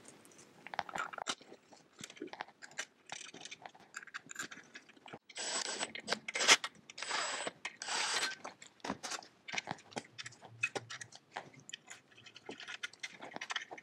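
Cap screws being run into the reed cage mounting block of a kart engine: light clicks and knocks of metal parts being handled, with two or three short runs of a cordless driver around the middle.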